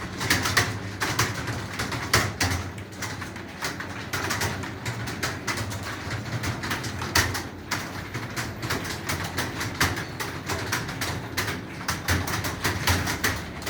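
Rapid, uneven clicking of computer keyboards being typed on, with a steady low hum underneath.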